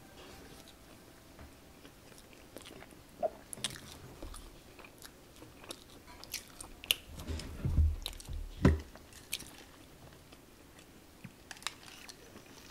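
Close-miked chewing of crispy Korean fried chicken: soft crunches and wet mouth sounds, with a cluster of louder crunches and knocks about eight seconds in.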